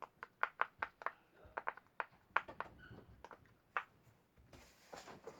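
Silicone push-pop bubble fidget (pop it) being pressed, its bubbles giving a quick, irregular series of soft pops, sometimes two or three in a row.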